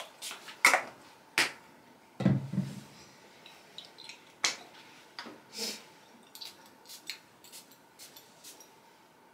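Scattered light clicks and rustles of small things being handled, with one heavier, dull thump about two seconds in.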